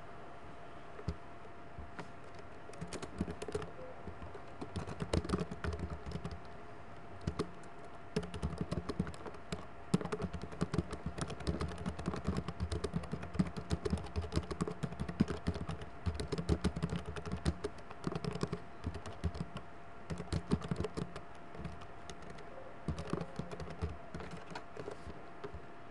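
Typing on a computer keyboard: rapid clicking keystrokes in bursts, several a second, over a faint steady electrical hum.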